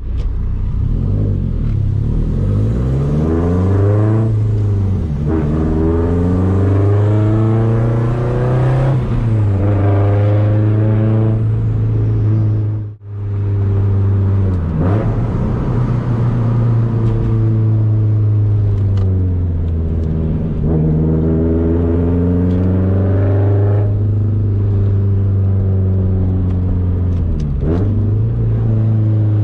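Straight-piped 2004 Subaru WRX STI's turbocharged 2.5-litre flat-four, heard from inside the cabin, pulling through the gears: the exhaust note climbs with each run up the revs and drops back at each shift, over and over. About halfway through, the sound cuts out for an instant.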